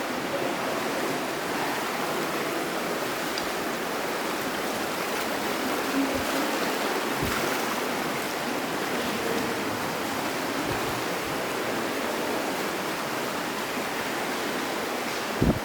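Steady rushing of flowing water, a stream or small waterfall. A few short low thumps break through, the loudest just before the end.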